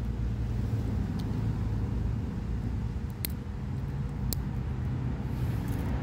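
Steady low rumble of road traffic, with a few sharp metallic clicks as the small tools of a Victorinox Classic SD pocket knife snap shut.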